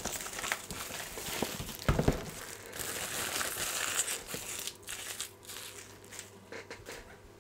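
Clear plastic shrink-wrap crinkling and tearing as it is peeled off a cardboard box and crumpled into a ball, with a thump about two seconds in. The crinkling is busiest in the middle and thins out near the end.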